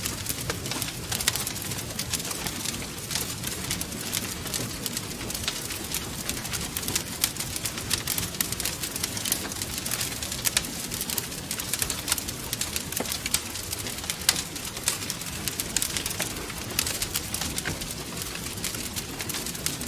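Wood fire crackling and popping, with dense irregular snaps over a steady low rumble of flame.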